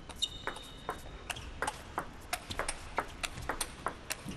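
Table tennis rally: the ball clicking off the players' rubber bats and bouncing on the table in a quick string of sharp knocks, about three or four a second.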